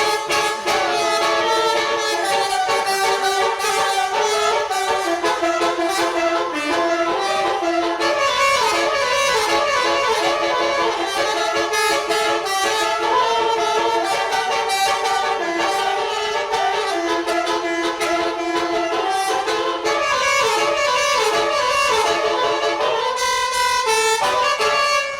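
Multi-tone 'telolet' bus horn playing a continuous melody of stepping, held notes with a brassy, reedy tone.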